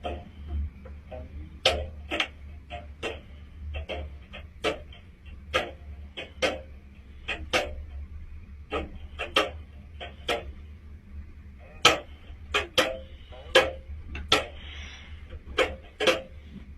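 A series of sharp, irregular taps or knocks, about one or two a second, over a low steady hum.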